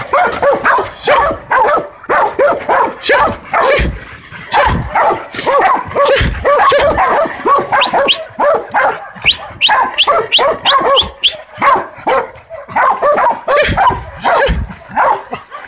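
Two young dogs barking hard and continuously, two or three barks a second with some higher yelps mixed in, as they bay a hog in a training pen.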